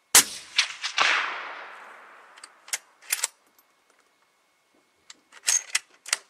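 A single shot from a Marlin X7VH bolt-action rifle in .308 Winchester fitted with a Stalon Whisper silencer: a sharp crack just after the start, its echo dying away over the next second or two. Then short clicks and clacks in two clusters, about three seconds in and again near the end.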